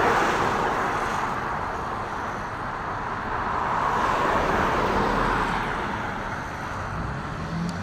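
Steady road and tyre noise inside a moving car, swelling a little midway and easing off toward the end.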